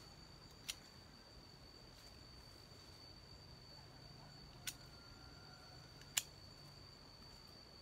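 A steady, high insect trill, with three sharp snaps of plant stems being broken by hand: one about a second in and two later on, the last the loudest.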